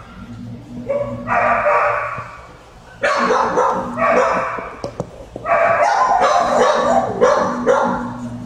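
Dogs barking in shelter kennels, overlapping barks in bursts of about a second at a time, over a steady low hum.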